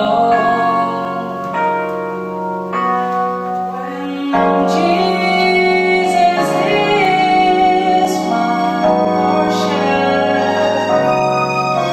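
A woman singing a song into a microphone, amplified over a PA, over an accompaniment of held chords; the music grows fuller and louder about four seconds in.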